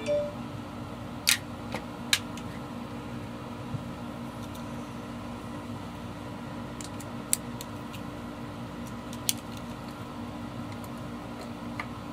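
A few sharp metallic clicks and taps as a small screwdriver is handled and fitted to a saddle intonation screw on an electric guitar's bridge, over a steady background hum. Two clicks come close together a second or two in, and two smaller ones later.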